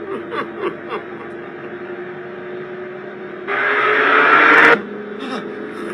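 Car engine running with a steady drone, then a loud rush of car noise, its pitch rising slightly, about three and a half seconds in that cuts off abruptly about a second later.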